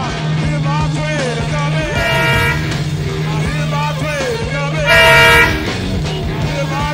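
Two blasts of a WDP4D diesel locomotive's air horn, a short one about two seconds in and a louder one of about half a second near five seconds, over the steady hum of a passing train.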